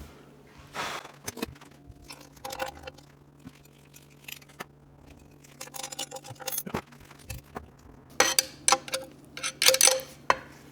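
Small metal parts clicking and clinking as a retaining clip is worked onto a manual transmission's reverse shifter linkage, with short bright rings of metal. The clicks are scattered at first and come thicker and louder in the last few seconds.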